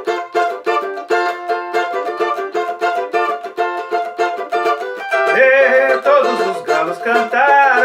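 Music: a small plucked-string instrument picking a quick, rhythmic intro to a song. About five seconds in, a wordless singing voice comes in over it.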